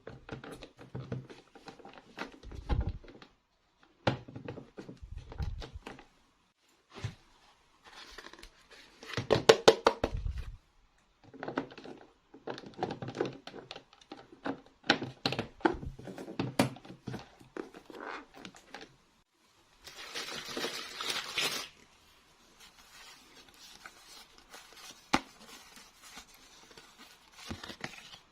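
Toy packaging and small plastic toy parts being handled during an unboxing: intermittent crinkling, tearing and rustling with scattered clicks and taps, and a longer rustling stretch about twenty seconds in.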